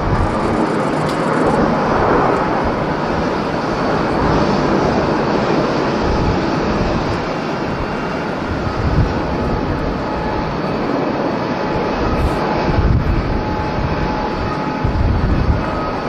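Jet engines of a Japan Airlines Boeing 737-800, CFM56-7B turbofans at climb power as it departs, a steady roar. Low gusts of wind hit the microphone throughout.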